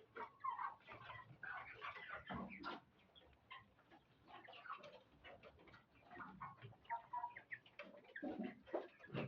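A flock of chickens about six weeks old, many birds clucking and calling at once in short overlapping calls.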